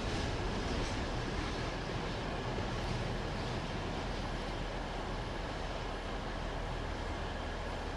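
Train running with a steady rumble and hiss, easing off very slightly, with a faint steady tone above it.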